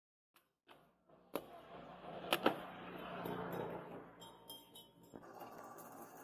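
A billhook blade chopping through a green plant stalk: two sharp strikes in quick succession about two and a half seconds in, over a faint steady hiss of outdoor background noise.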